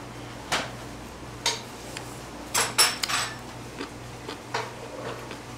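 Dishes and utensils clinking and clacking: a string of separate sharp clicks, the loudest pair about two and a half seconds in, over a low steady hum.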